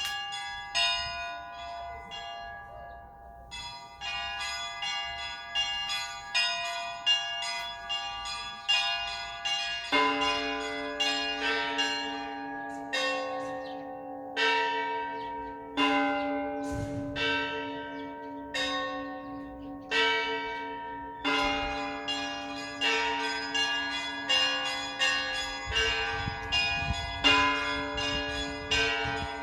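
Russian Orthodox church bells ringing a peal: small high bells struck in quick, irregular strokes, joined about ten seconds in by a deeper bell struck every second or two.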